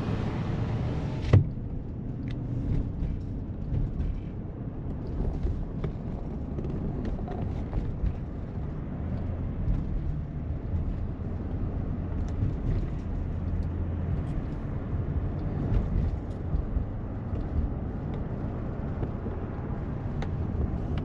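Low, steady rumble of a car moving on the road, with faint clicks and one sharp knock about a second in.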